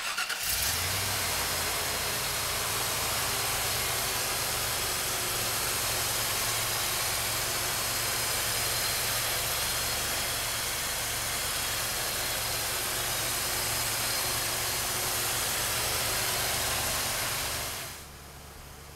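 1993 Ford F-150 Lightning's 351 Windsor V8 idling steadily, heard close in the open engine bay under a strong, even hiss. The sound drops much quieter near the end.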